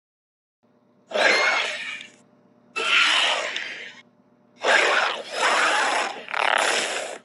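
Prehistoric-animal sound effects: five harsh, noisy creature calls of about a second each, separated by short silences, the last three coming close together.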